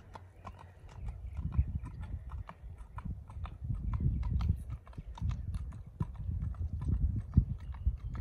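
A horse's hooves clip-clopping on a paved road in a steady, even rhythm of several hoofbeats a second, with a low rumble underneath.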